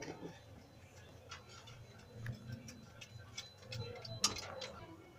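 Light, scattered clicks and taps of small plastic phone parts being handled with the fingers, with a louder knock a little after four seconds.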